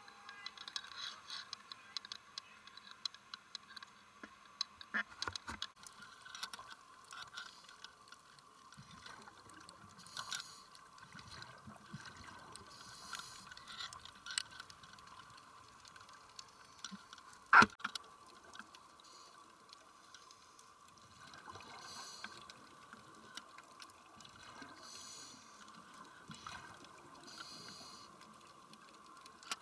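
Faint underwater ambience picked up by a camcorder in its housing: a steady faint hum with scattered clicks and crackles and soft stretches of bubbling water, and one sharp loud click a little past the middle.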